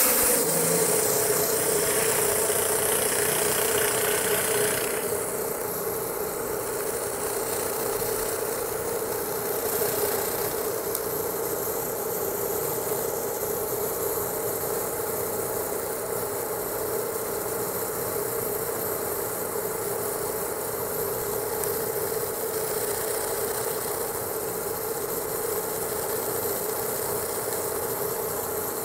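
Pressure washer running through a round surface cleaner on stamped concrete: a steady mechanical drone with a constant tone and hissing water spray, easing slightly about five seconds in.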